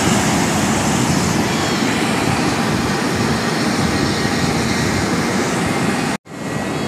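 Airport apron ambience: a steady, loud rushing noise with no clear engine tone. It cuts out abruptly for a split second near the end, then resumes.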